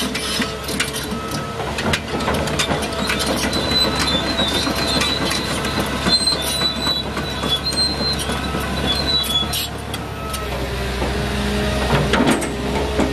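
Hitachi ZX850LC-3 excavator travelling on its steel crawler tracks: track links clank and squeal with many small metallic clinks, over the running diesel engine. About ten seconds in the clanking eases and a deeper steady engine hum comes up.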